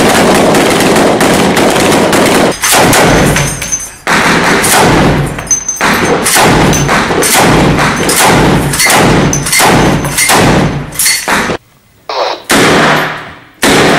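Very loud close-range rifle fire: a long run of shots about two or three a second. It breaks off for a moment near the end, then a few more shots follow.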